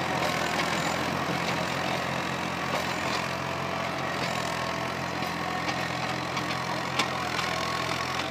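Old Universal tractor's diesel engine running steadily under the load of a rotary tiller (rotavator) churning through dry soil, with a few sharp ticks.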